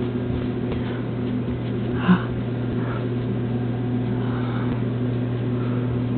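A steady low electrical hum, with a few faint short rustles and a brief soft sound about two seconds in.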